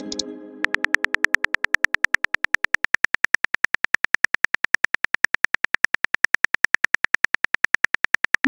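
A rapid, even train of identical clicks, about six or seven a second: a looped phone-keyboard typing sound effect. A message-notification chime rings out over the first second, and a short rising swoop starts at the very end.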